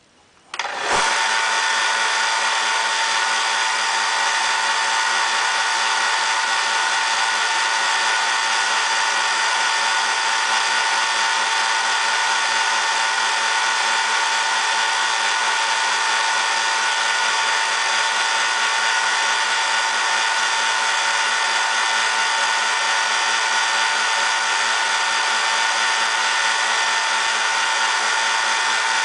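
A small benchtop belt sander switched on about half a second in, then running steadily with a constant whine.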